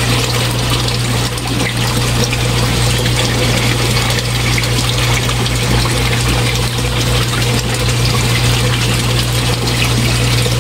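Fish tank pump running with a steady low hum, while water churns and bubbles into the tank.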